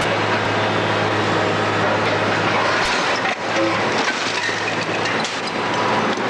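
Heavy demolition machinery at work: a steady low engine hum under continuous rattling noise with scattered sharp knocks.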